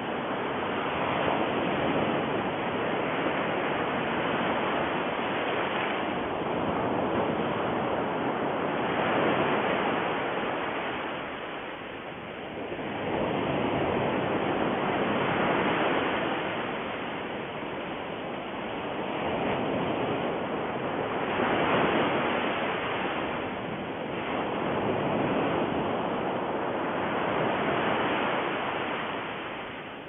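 Steady rushing noise that swells and ebbs every few seconds, like surf.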